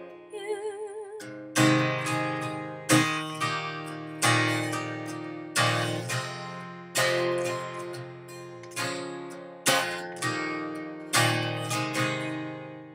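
Acoustic guitar outro: slow strummed chords, one roughly every second and a half, each left to ring and die away, with the last chord fading out near the end. A woman's sung note with vibrato ends just before the strumming starts.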